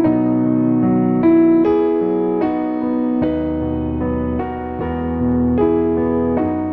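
Background music: piano playing a gentle melody of notes about half a second apart over a low bass line.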